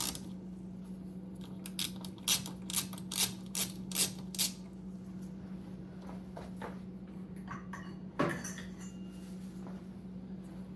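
Ratchet and 8mm socket clicking and clinking on the metal as the Mini's coolant reservoir bolts are undone: a run of about half a dozen sharp clicks a few seconds in, then a single knock near the end, over a steady low hum.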